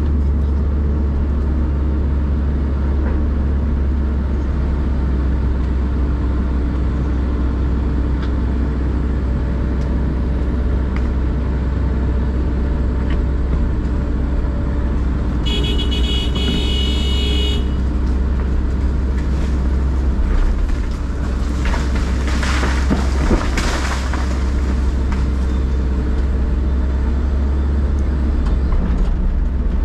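Hitachi excavator's diesel engine working under load, heard from inside the cab, as the machine pushes a large tree over. About halfway through a high-pitched tone sounds for about two seconds. Later comes a crackling, crashing noise of wood and roots giving way as the tree goes over.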